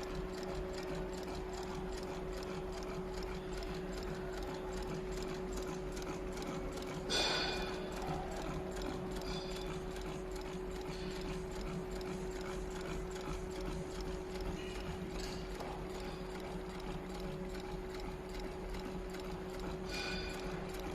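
Double-needle industrial sewing machine running steadily, with a constant hum under a rapid fine ticking of stitches. About seven seconds in comes a louder sharp clack.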